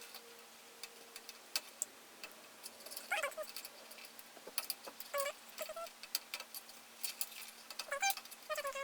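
Scattered sharp clicks and small knocks of computer power-supply cable connectors being handled and pushed into a motherboard, with a few short, high, squeaky whines now and then over a faint steady hum.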